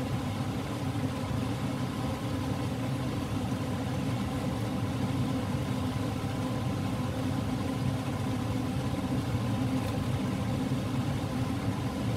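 Steady mechanical hum of a kitchen appliance's fan or motor running, with several steady tones and no change in level.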